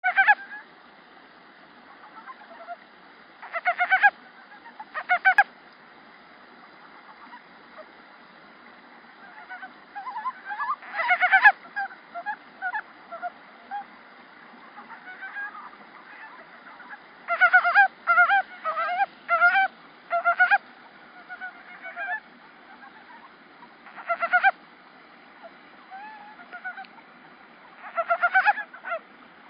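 Male Japanese mountain brown frog (Rana ornativentris) calling: short bouts of rapid pulsed notes, repeated irregularly every few seconds, with a run of several bouts in quick succession about two-thirds of the way through. Fainter calls come between the loud bouts.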